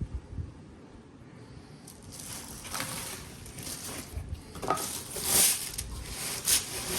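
Packaging rustling and crinkling in irregular bursts as a speaker-stand column is handled out of its wrapping, starting about two seconds in; a few soft handling knocks near the start.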